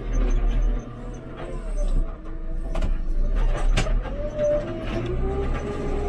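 JCB 3CX backhoe loader's diesel engine running, heard from inside the cab, with a whine that rises and falls in pitch as the machine works. A couple of sharp clunks come near the middle.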